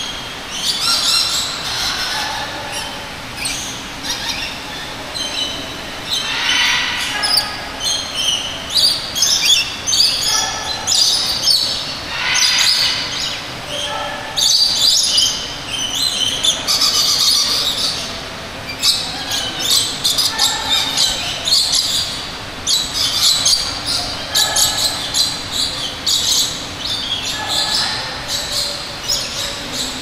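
Many tropical birds calling at once in a large indoor aviary: a dense, continuous chorus of overlapping squawks and chirps.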